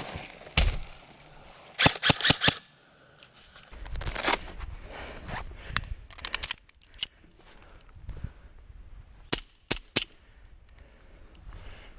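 Airsoft guns firing sharp cracking shots: a quick string of about five shots about two seconds in, then scattered single shots and short runs of shots.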